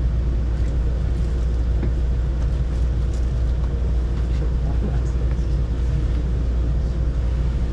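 Metro train running, heard from inside the passenger car: a steady low rumble with a constant hum over it.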